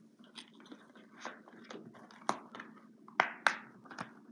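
Plastic 4K Blu-ray disc case being handled: a string of light clicks and taps, with sharper plastic clacks about two seconds in and again about three and a half seconds in.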